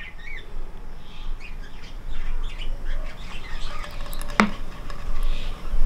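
Birds chirping on and off in short calls, over a low steady rumble, with one sharp tap about four and a half seconds in.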